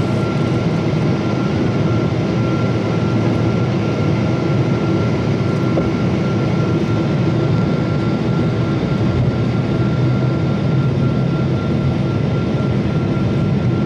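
Airliner cabin noise in flight, heard from inside the cabin: a steady jet-engine and airflow rumble with a thin, steady whine above it.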